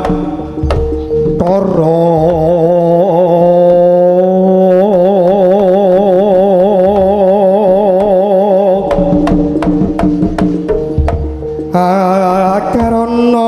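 Live Javanese jaranan gamelan music: a wavering, sustained melody over a steady deep drone. About nine seconds in the melody drops out for a run of sharp drum strokes, then comes back.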